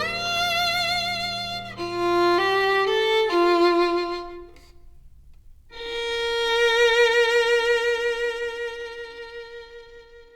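Instrumental music: a violin plays a melody with vibrato over soft accompaniment, pauses briefly, then holds one long note that fades out, closing the song.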